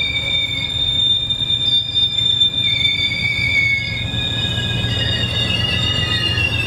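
Passenger cars rolling past, among them a Milwaukee Road car and a stainless-steel Burlington dome car, their steel wheels squealing in several steady high tones over a low rumble of wheels on rail.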